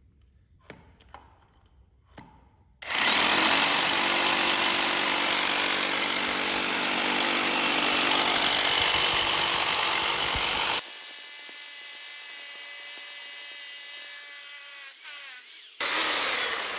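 Bauer 10-amp corded hammer drill boring into concrete, the motor running at a steady whine with a hammering rattle underneath for about eight seconds. The sound cuts back abruptly and the whine falls in pitch as the drill slows, then it spins up again briefly near the end.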